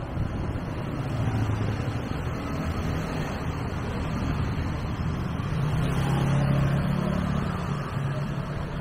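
Street traffic: a motor vehicle's engine running close by, a low rumble that swells louder about six seconds in and then eases off.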